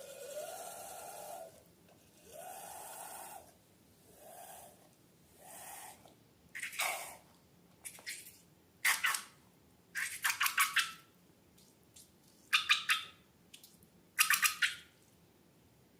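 Slime being handled: first four longer squeaky rubbing sounds with a wavering pitch, then about seven short bursts of wet crackling and popping as the slime is squeezed and squished.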